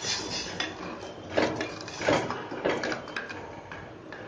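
Wooden spatula scraping and knocking against an aluminium pot in a few separate strokes, stirring lumps of jaggery in water to dissolve them into syrup.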